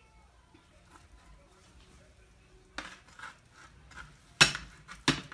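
Kitchen utensils clinking and clattering against dishes or cookware: quiet at first, then a run of sharp clicks and knocks starting about halfway in, the loudest a little before the end.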